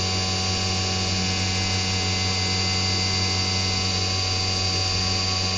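CNC vertical mill finishing a Zündapp engine's ignition cover: the spindle runs with a steady high whine while the small end mill cuts under flood coolant, over a low steady hum.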